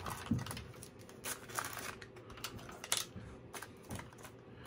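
Small plastic resealable bags being handled: light crinkling and rustling with a few sharp clicks, as rubber T-stops are worked into a bag.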